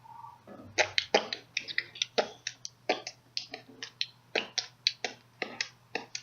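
Rapid, irregular sharp pops and clicks, about three a second, from a fidget spinner's suction cups being pressed on and pulled off.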